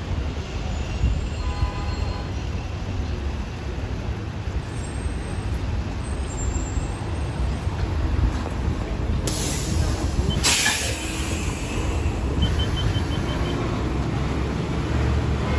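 2018 New Flyer Xcelsior XD60 articulated bus rumbling as it pulls into a stop. About nine and ten seconds in come two loud hisses of released air from its air brakes and doors, then a quick string of short high beeps.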